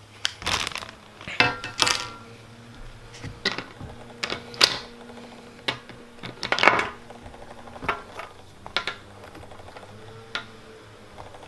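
Plastic toy pieces of a Minnie Mouse yacht playset clicking and knocking together as they are handled, in irregular single clicks and short clattering clusters.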